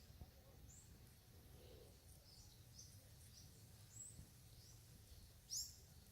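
Faint bird chirps: a scatter of short, high, upward-sweeping calls, one louder near the end, over low background noise.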